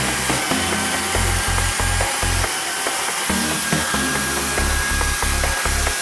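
Electric concrete engraving saw (the Spiider) running with a steady high motor whine, its blade scoring lines into concrete with a harsh grinding hiss. Background music plays underneath.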